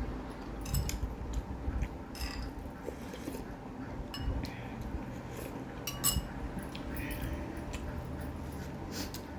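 Cutlery clinking and tapping against a dish with irregular light clicks while someone eats.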